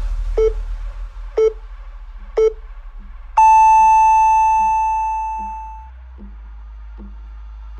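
Workout interval timer counting down: three short beeps a second apart, then one long, higher beep that slowly fades, marking the end of the exercise round. Faint ticking about twice a second follows.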